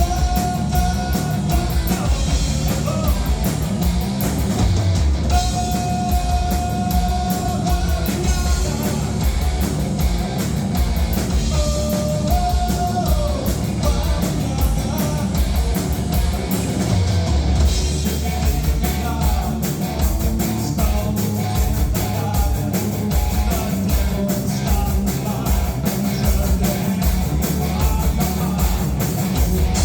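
Live rock band playing loud, with drum kit and electric guitar and a voice singing, some notes held for a second or two.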